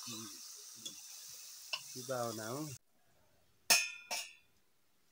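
Goat meat sizzling in a pot as a ladle stirs it, with small scraping clicks and a brief voice about two seconds in. The sizzle cuts off abruptly, and then come two sharp metal clinks, a spoon against brass plates, the first one loud.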